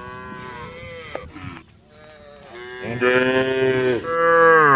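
Cows mooing: a long moo at the start, then two loud, long moos back to back in the second half.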